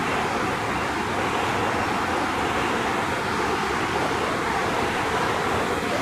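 Waterfall: water rushing and falling with a steady, even noise that does not change.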